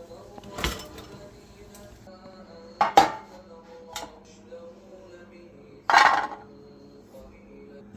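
Dishes and cutlery knocking and clinking: a handful of separate sharp knocks, two close together about three seconds in and the loudest about six seconds in.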